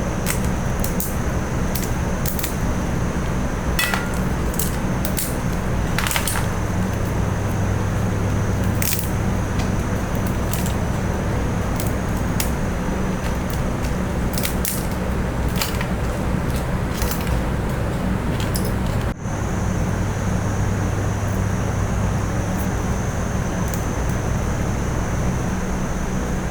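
Steady rushing kitchen noise with a low hum, broken by scattered sharp clicks and clinks of utensils, with a brief break about nineteen seconds in.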